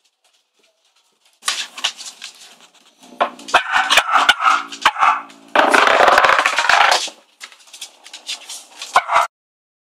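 Cavalier King Charles spaniels barking and growling while they scuffle over a wooden spinning top on wooden floorboards, with sharp knocks and clatter throughout. It starts about a second and a half in and stops abruptly near the end.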